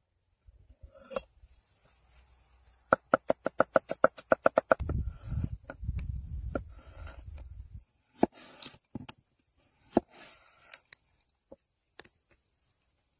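A steel cleaver chopping on a wooden cutting board: a quick run of about a dozen knocks, then a low rumble and a few separate knocks as the blade slices through a raw potato onto the board.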